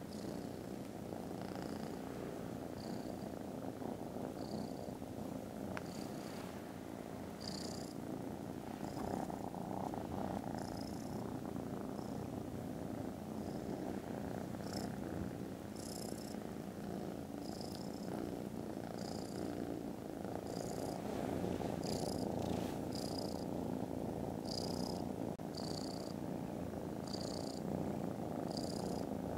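Kittens purring steadily, close up, a continuous rumbling purr. From about a quarter of the way in, a short higher hiss recurs roughly once a second over the purr.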